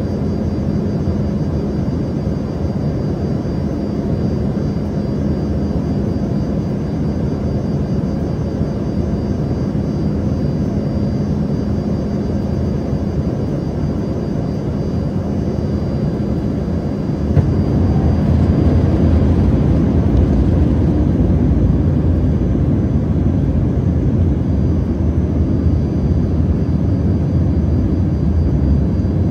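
Cabin noise inside an Embraer ERJ-145 regional jet: the steady drone of its rear-mounted Rolls-Royce AE 3007 turbofans, with a few faint steady whines on top. About 17 seconds in, the sound steps up suddenly into a louder, deeper rumble that holds.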